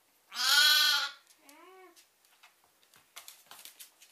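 A day-old lamb bleating: one loud call, then a shorter, softer one. Near the end comes a run of light taps.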